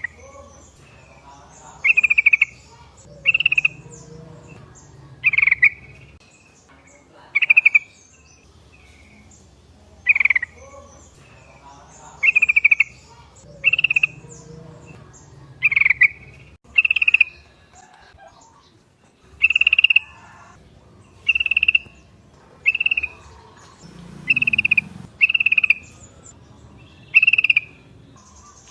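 Yellow-vented bulbul (trucuk) calling: short, loud, bubbly phrases repeated every one to two seconds, about sixteen in all, over a faint low hum.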